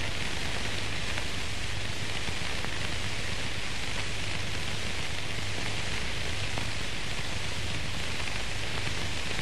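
Steady hiss with a low hum underneath, the background noise of an old film soundtrack, with nothing else sounding.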